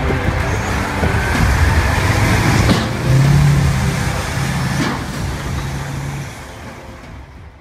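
Heavy diesel engine of an Oshkosh HEMTT eight-wheel military truck running as the truck drives through mud, fading out near the end.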